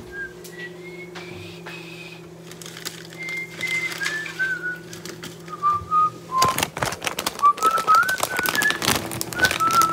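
A person whistling a wandering tune in single clear notes, over a steady low hum. From about six and a half seconds in, a flurry of rustling and clicks joins it as something is handled.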